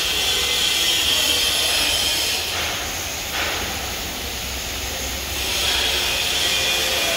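Steady machine noise with a high whine over a low hum. The whine drops out and the noise dips slightly for about three seconds in the middle, then comes back.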